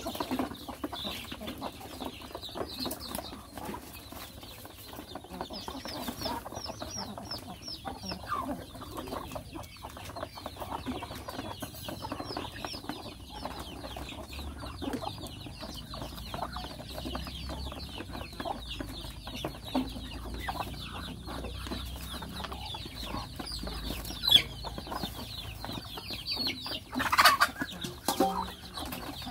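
A flock of young chickens and Muscovy ducks feeding together, with a steady stream of short, high, falling peeps, clucking, and the tapping of beaks pecking at feed. Near the end there is a louder burst of squawking as one bird rushes through.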